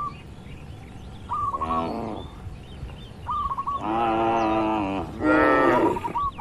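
Cows mooing in a barn: a short moo about a second and a half in, then a long moo from about four to five seconds and another right after it. A bird chirps in short repeated notes between the moos.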